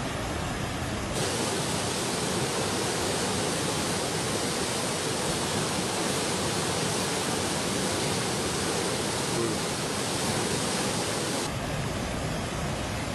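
Floodwater pouring over a reservoir's circular bell-mouth spillway and churning in the foam below: a steady rushing noise. It turns brighter and hissier about a second in, then duller again near the end.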